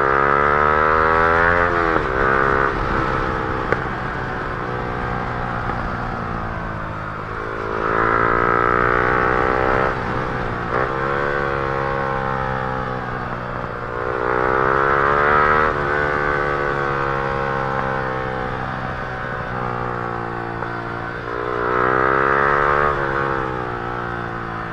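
Yamaha R15 M's 155 cc single-cylinder engine breathing through an aftermarket Akrapovic R1 exhaust, idling and revved four times, about every seven seconds. Each rev rises quickly and falls back to idle within about two seconds.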